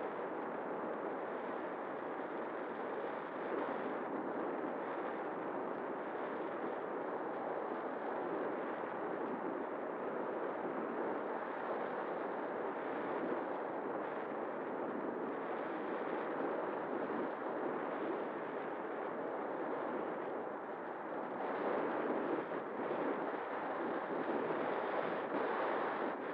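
Airflow rushing over the microphone of a camera on an RC glider in flight: a steady rushing noise with a faint steady hum underneath, a little louder in the last few seconds.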